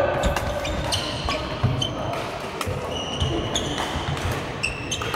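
Badminton play on a wooden sports-hall court: sharp racket-on-shuttlecock hits and footsteps, with short squeaks of court shoes on the floor around the middle, all echoing in the large hall.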